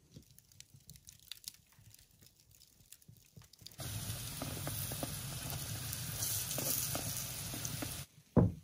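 Soft, faint handling of floured dough, then a steady sizzle of verguny dough pastries frying in a cast-iron skillet as they are turned with a knife and fork, cutting off suddenly. Near the end comes a single loud knock.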